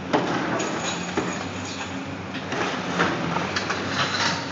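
Excavator demolition jaw crunching through a concrete wall, with irregular sharp cracks and clatters of breaking concrete over the steady hum of the excavator's diesel engine.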